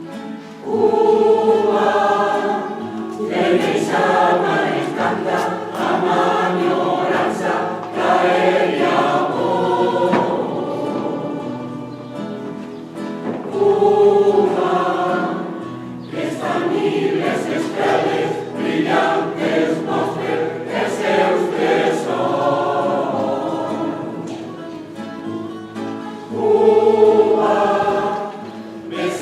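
A choir singing a habanera in phrases, the voices swelling and dipping between lines, over a low sustained bass note.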